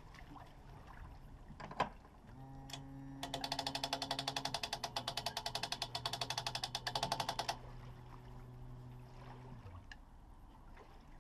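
Boat trailer's hand winch being cranked, its ratchet pawl clicking in a fast, even run for about four seconds. A low steady hum sits underneath.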